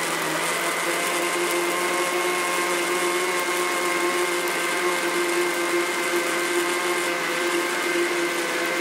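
Electric countertop blender running at one steady speed, a constant motor whine, as it purées chopped mango and apple in cold water into juice.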